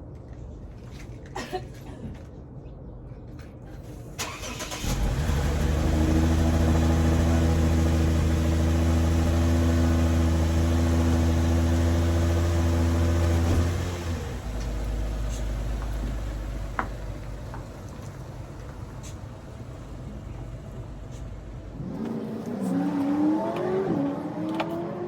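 Car engine running: a steady, loud hum that comes on about five seconds in and holds for about nine seconds, then drops to a lower, quieter rumble.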